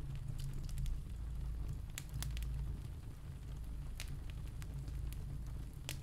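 Wood fire crackling: scattered sharp pops at irregular moments over a steady low rumble.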